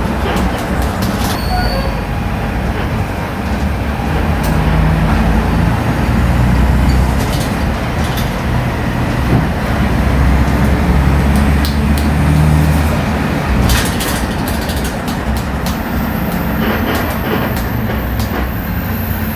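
Volksbus 17-230 OD natural-gas (CNG) city bus running under way: a steady low engine rumble whose note rises and eases twice, with scattered light clicks and rattles.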